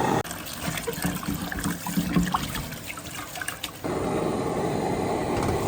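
Water trickling and dripping with small scattered blips, then changing suddenly about four seconds in to a steady hiss.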